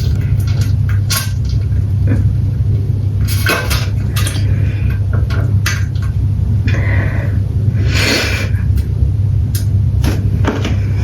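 Close-miked stomach sounds of a belly digesting a large meal: a steady low rumble with scattered clicks and a few short gurgling swishes.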